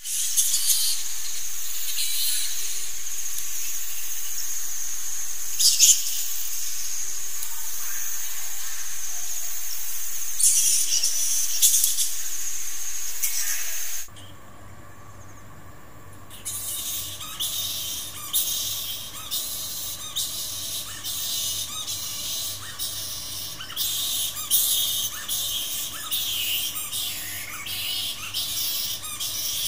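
A roost of bats calling. First comes a loud, dense, steady high-pitched chorus. After a cut about halfway through come quieter, separate sharp squawks and chatter, growing busier near the end.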